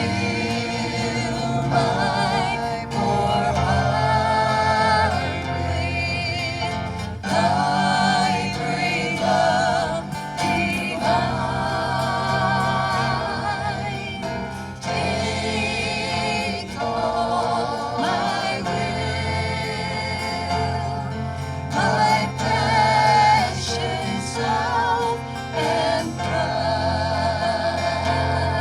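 Gospel song sung by several voices with instrumental accompaniment.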